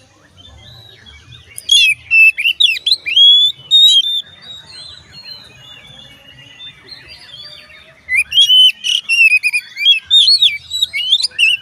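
Oriental magpie-robin (kacer) singing: two bursts of rapid, varied whistles and chirps, the first about two seconds in and the second about eight seconds in, with a quieter pause between.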